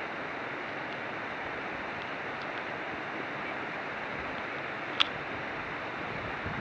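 Steady rushing wind noise on the microphone as the camera travels along the road, with a single sharp click about five seconds in.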